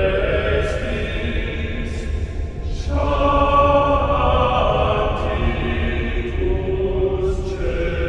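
Background music of slow, held chords, changing about three seconds in and again near the end.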